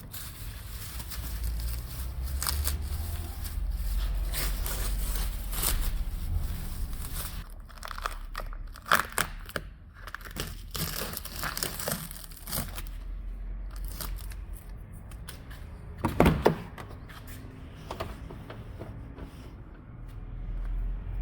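Crinkling and rustling handling noises, with many scattered clicks and one loud knock about 16 seconds in.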